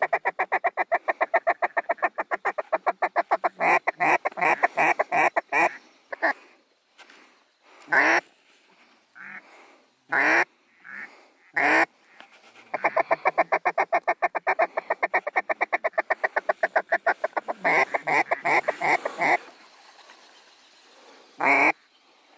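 Mallard duck call blown in long runs of rapid notes, about eight a second, a feed chuckle to work circling mallards. Between the two runs and near the end come single louder quacks.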